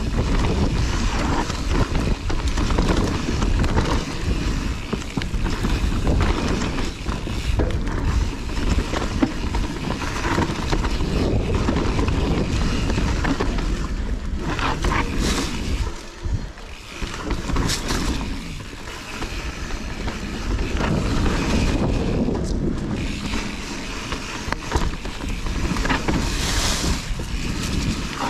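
Kona Process 153 mountain bike riding down a dirt trail, heard from a camera on the rider's chest: tyres rolling over dirt, knocks and rattles from the bike over bumps, and wind rushing on the microphone. A brief lull comes about sixteen seconds in.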